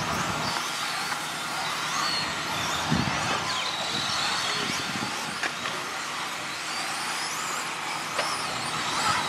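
Radio-controlled 1/10-scale truggies racing on a dirt track: high motor whines rise and fall as they speed up and slow down, over a steady hiss.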